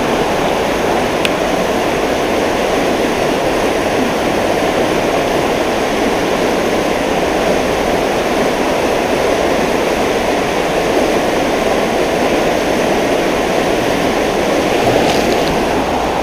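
River water rushing steadily over a shallow riffle, an even rush with a single faint click about a second in.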